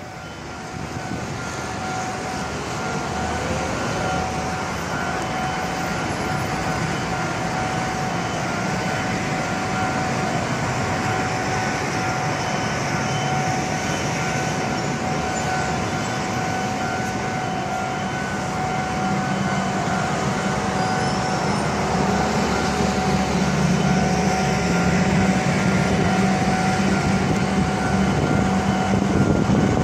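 Railway level-crossing warning alarm sounding with a steady ringing tone, over a rumble of traffic and railway noise that grows slowly louder, with deeper engine-like tones joining past the middle.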